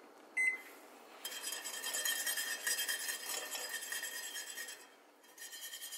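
Wire whisk clinking rapidly against the sides and bottom of a stainless steel pot, stirring thick simmering pudding, from about a second in until near the end, with a brief pause before it resumes. About half a second in, a single short electronic beep from the stove's controls as the heat is turned down a notch.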